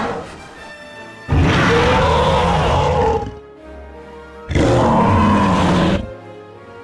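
Recorded dinosaur roars from an animatronic dinosaur's sound system. The tail of one roar ends at the start, then two long, loud roars follow, each lasting about a second and a half, with a short pause between them.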